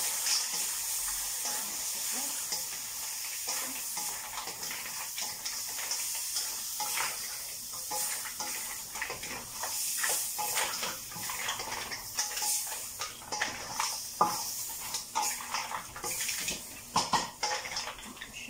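Mussels and shrimp sizzling in a stainless steel wok, with a steady hiss, while a wooden spoon stirs them: many sharp clicks and knocks of spoon and mussel shells against the pan, busier toward the end.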